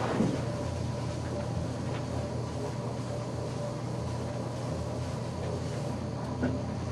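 Felt eraser wiping a chalkboard, faint rubbing over a steady low room hum.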